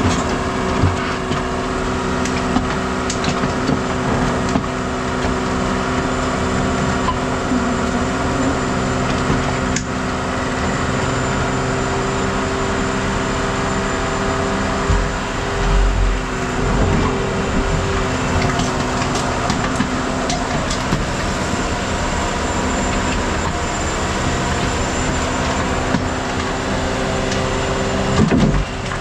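The engine of heavy scrap-yard machinery running steadily, with a few short clanks.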